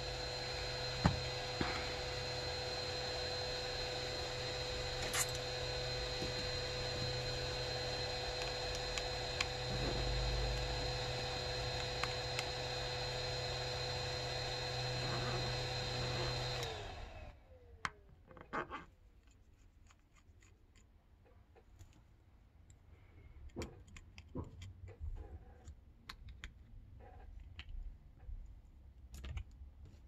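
An electric blower runs steadily, a rush of air with a constant whine, and is switched off about 17 seconds in, its pitch dropping as it spins down. After that come light clicks and taps of small plastic parts as the phone's back cover is pried and lifted off.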